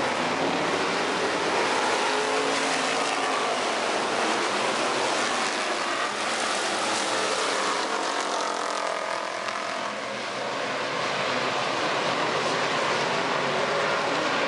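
A pack of hobby stock race cars racing on a dirt oval: a dense blend of many engines at speed, with pitches sweeping up and down as the cars pass. It dips briefly about ten seconds in.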